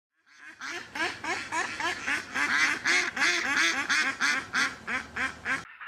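A rapid run of duck quacks, about four or five a second, building in volume and then cutting off suddenly near the end, giving way to fainter quacking.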